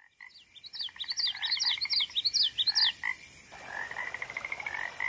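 Frog chorus: many short high chirps overlap a rapid pulsed trill, which gives way after about three seconds to a softer trill.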